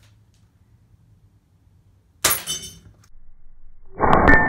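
An airsoft sniper rifle fires once with a sharp snap about two seconds in. Near the end a BB strikes a small metal target with a louder clang, and a metallic ring lingers after it.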